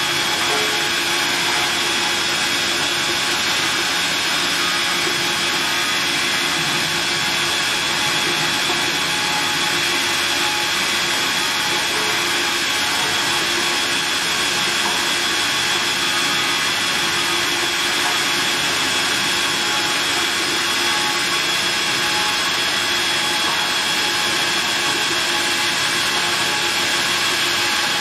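Automatic polishing machine's abrasive wheel grinding the outer surface of a rotating stainless steel tank shell: a steady hiss of abrasive on steel with an even high whine from the running wheel.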